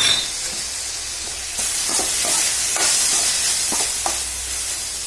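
Chopped onion and tomato sizzling in hot oil in an aluminium kadai, being stirred with a slotted steel ladle that scrapes and taps against the pan several times. The sizzle grows louder about a second and a half in as the tomato is spread through the oil.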